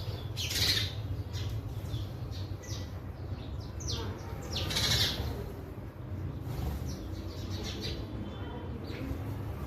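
Sparrows chirping: many short, rapid chirps that overlap, with two louder calls, one near the start and one about five seconds in, over a steady low rumble.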